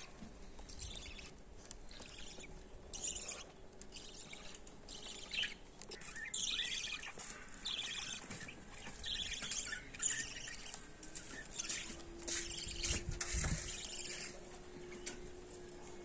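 Budgerigars chirping and chattering in short, irregular bursts of high chirps, getting busier from a few seconds in.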